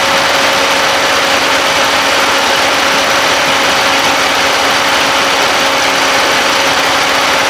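Turbocharged Jeep Wrangler TJ engine idling steadily with the hood open. The engine has a misfire that the trouble codes put on cylinder four.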